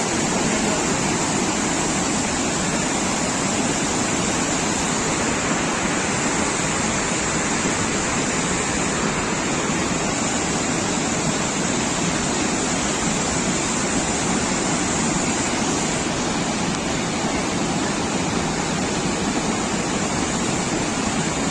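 Flash-flood water rushing past in a steady, loud torrent.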